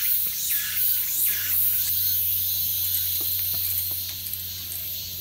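Steady high-pitched buzzing of insects, with a repeated chirping call in the first two seconds that then fades. A few faint clicks come later.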